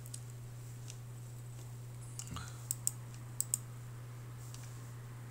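Computer mouse clicks: a few single clicks, then two quick pairs of clicks in the middle, over a steady low electrical hum.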